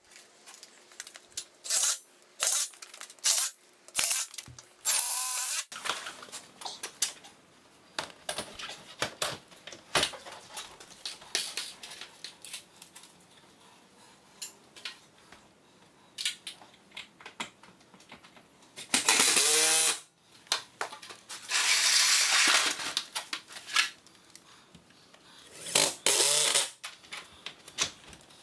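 Cordless drill driving screws into garage door hardware in repeated short bursts, several opening with a rising whine as the motor spins up, the longest two past the middle. Light clicks and knocks of hardware being handled between the bursts.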